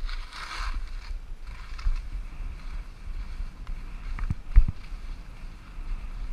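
Skis running over fresh snow with wind buffeting the microphone: a steady low rumble and snow hiss, with a brief hiss at the start and a couple of sharp thumps about four and a half seconds in.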